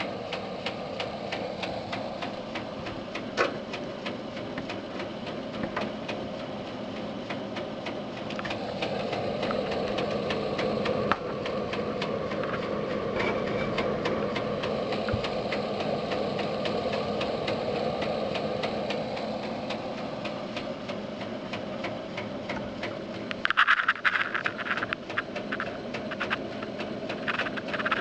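Desktop PC system unit running with a steady fan whir and a run of faint, rapid clicks, and a burst of louder knocks near the end. The knocking is the fault of a computer that barely starts.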